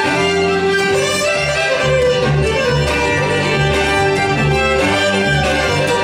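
Two fiddles bowing a tune together over an upright bass playing a steady walking line of low notes, about two a second.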